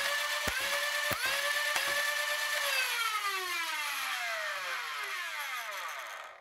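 Flywheel motors of a modified Nerf Stryfe (Neo Rhino motors) spinning with a steady whine as darts are fired: two shots about a second in, each a sharp click with a brief dip in the motor pitch. The motors then spin down after the trigger is released, the whine falling steadily in pitch until it cuts off near the end.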